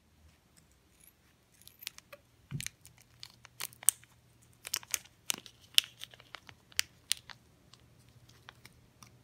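Small clear plastic jewellery baggie being cut with scissors and pulled open by hand: a scatter of sharp plastic crinkles and clicks, with one soft thump a couple of seconds in.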